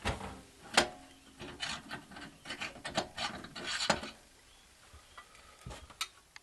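The metal door of a Hobbit small multifuel stove being worked off its hinge, a busy run of knocks, clinks and rasping scrapes for about four seconds, then a couple of lighter clicks near the end.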